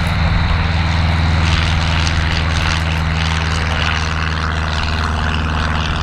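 Light single-engine propeller aircraft's piston engine running steadily close by, a loud, even drone.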